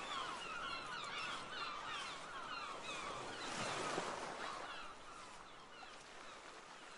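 Seaside ambience sound effect: birds calling over and over in short, falling cries above the steady wash of surf, with a wave surging in about halfway through. Everything then fades away.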